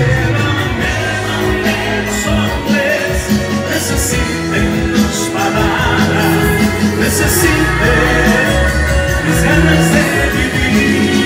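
Live band playing an upbeat Latin pop-rock song, with some singing.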